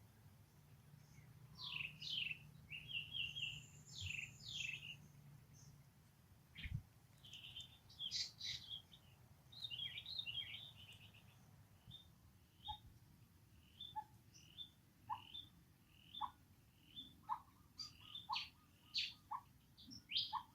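High-pitched animal chirps: a run of varied, quick chirps and trills in the first half, then a steady string of short repeated chirps, a little more than one a second.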